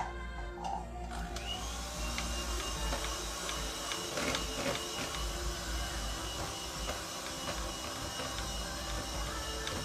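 A sharp knock right at the start, then an electric hand mixer starts about a second in and runs steadily with a thin high whine, its beaters churning cake batter in a plastic bowl.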